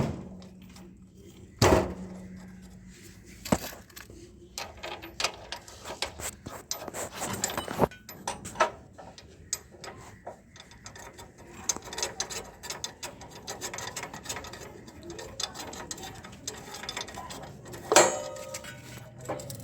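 Scattered metal clicks, rattles and knocks of hand tools and motorcycle parts being worked while a rear wheel and axle are refitted, with a loud knock about two seconds in and another near the end.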